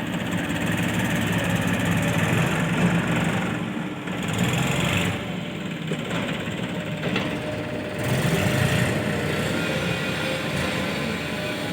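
Heavy diesel engine running steadily with a low hum, swelling and easing in loudness as the machinery works.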